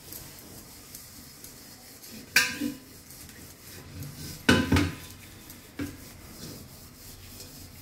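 A copper pot being scrubbed by hand with a white cleaning paste, giving a steady faint rubbing hiss. A few sharp metallic clinks and knocks break through it, the loudest about two and a half and four and a half seconds in.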